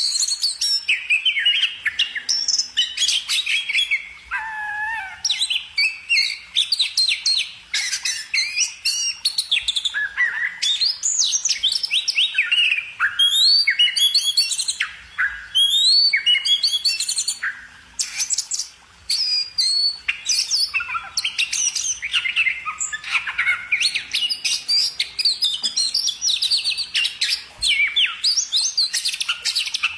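A songbird singing a fast, varied chirping song of quick sweeping notes that runs almost without a break, pausing briefly about two-thirds of the way through.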